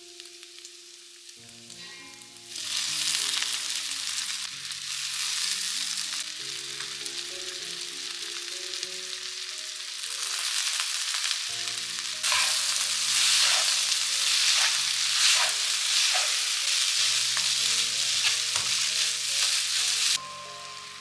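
Food sizzling in a hot frying pan, with stirring. The sizzle starts about two and a half seconds in, gets louder about halfway through and cuts off suddenly near the end, over soft background music.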